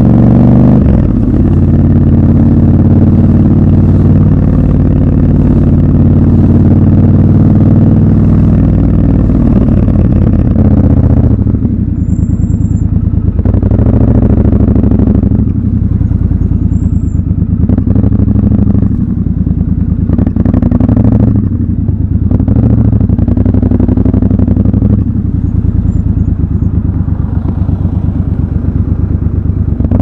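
Triumph Scrambler 1200 XC's 1200 cc parallel-twin engine running at low revs in slow traffic. From about eleven seconds in it turns lower and choppier, near idle, with short throttle openings.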